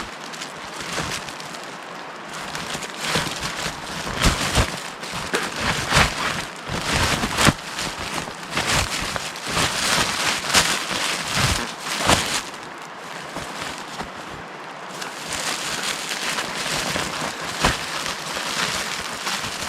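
Footsteps crunching through dry leaves, twigs and undergrowth while walking downhill, with irregular snaps and rustles.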